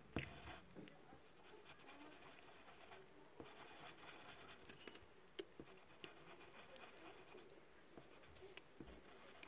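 Faint, uneven scratching of strokes being drawn on paper, with a few light taps and a sharper one right at the start.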